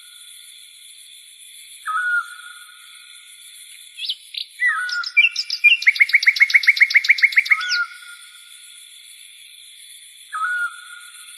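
A bird calling: short whistled call notes that dip and then level off, every few seconds. About six seconds in comes a fast run of about a dozen sharp notes lasting under two seconds. A faint steady high-pitched tone sounds behind.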